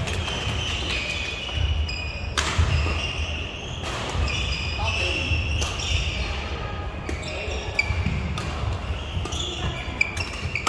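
Badminton play: sharp smacks of rackets striking the shuttlecock, spaced about a second or two apart, with short high squeaks of court shoes on the floor, over a low hall rumble and background voices.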